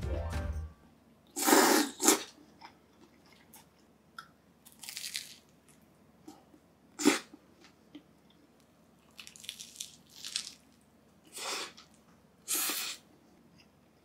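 Close-up eating sounds of a toasted mackerel sandwich being bitten and chewed: about seven short crunches of the toasted bread come in separate bursts, with quiet chewing between them.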